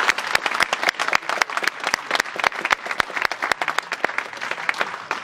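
Audience applauding: dense, irregular clapping that thins out near the end.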